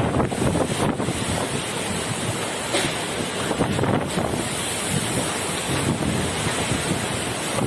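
Strong storm wind, gusting up and down and buffeting the microphone.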